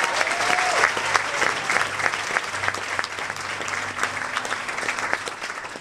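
Audience applauding, thinning and fading out near the end.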